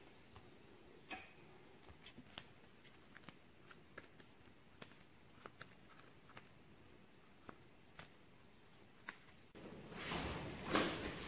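Quiet room with a few faint clicks, then about ten seconds in a large plastic-wrapped cardboard moving box is pushed across the floor with a loud scraping slide.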